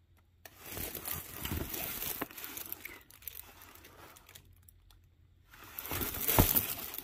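Clear plastic protective film on a diamond painting canvas crinkling as the canvas is handled and bent. The rustling comes in two spells: one from about half a second in, and a louder one near the end.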